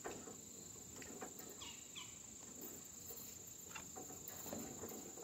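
Quiet outdoor ambience: a steady high-pitched insect drone, with a few faint clicks and short chirps.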